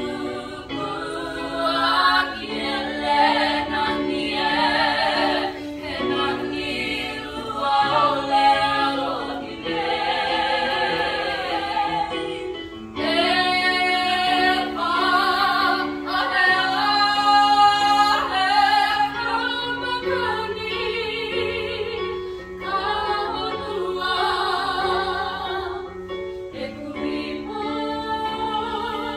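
A small group of teenage girls singing a song together in harmony.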